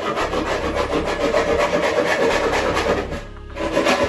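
Loud, rough scraping noise, like sawing or rasping. It breaks off briefly about three seconds in, then resumes.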